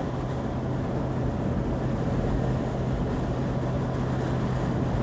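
A vehicle driving at a steady speed on a paved road: a constant low engine hum under even road noise.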